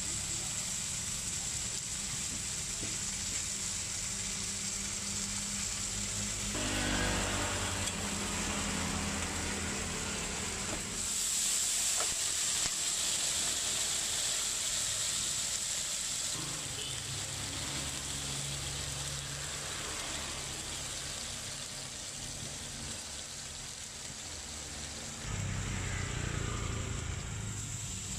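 Beef burger patties sizzling on a hot flat-top griddle, with a brighter hiss of steam for about five seconds near the middle, over the low rumble of passing street traffic.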